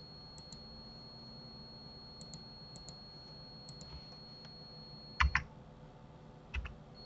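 Computer keyboard and mouse clicks: faint clicks in pairs through the first few seconds, then a louder key clack about five seconds in and another smaller one near the end, over a faint steady high whine.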